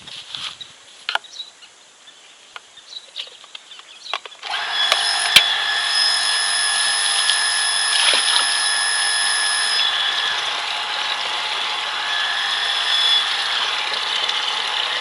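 A few light handling clicks, then about four and a half seconds in the electric motor of a Vikhr PN-370 surface water pump switches on. It runs steadily with a low hum and a high whine, its rust-seized impeller freed with WD-40 and spinning again.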